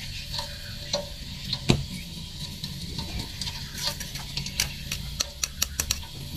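Freshly deep-fried pork crackling and the hot oil under it sizzling and popping as it drains on a wire rack, with irregular sharp crackles. A low steady hum runs underneath.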